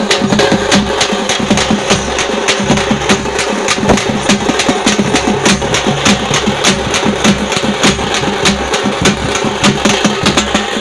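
Live Tamil folk drumming: thappu (parai) frame drums and a barrel drum beaten in a fast, steady rhythm, with a steady low drone beneath the beats.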